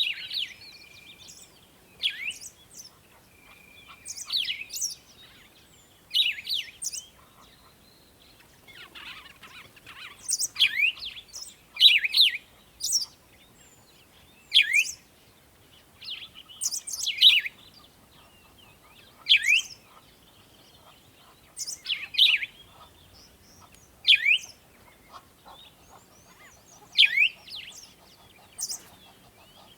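Songbirds chirping: short, sharp calls that sweep down in pitch, repeated about every two seconds, with fainter, higher chirps between them.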